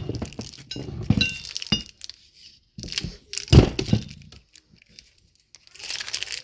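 Steel trailer-hitch parts knocking and clinking together as the receiver is handled and fitted, a few separate knocks with brief metallic ringing, the loudest about three and a half seconds in.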